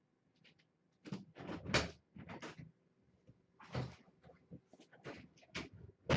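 Someone moving and handling things in a small room: a string of irregular knocks, clunks and rustles, one of the sharpest near the end.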